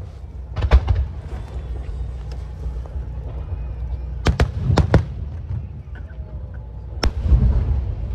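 Star mine aerial fireworks bursting over a continuous low rumble: a double bang about a second in, four sharp bangs in quick succession around four to five seconds, and one more about seven seconds in.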